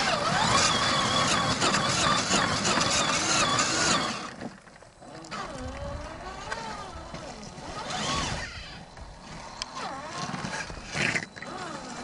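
Electric motor and two-speed gearbox of an RC4WD Trail Finder 2 scale crawler whining, the pitch rising and falling as the throttle is worked to crawl the truck over wet rocks. Heavy wind noise on the microphone covers it for about the first four seconds, then drops away.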